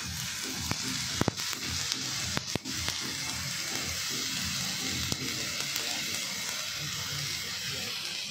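Chicken pieces sizzling on a smoking-hot sizzler plate, a steady hiss, with a few sharp clicks between about one and three seconds in as pieces are set down on the plate.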